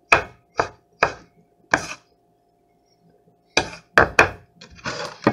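Chef's knife chopping a pickle on a wooden cutting board: four sharp knife strikes in the first two seconds, a short pause, then several more strikes near the end.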